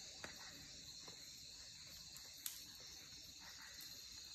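Faint, steady chirring of night insects, crickets, in a high band, with one faint click about two and a half seconds in.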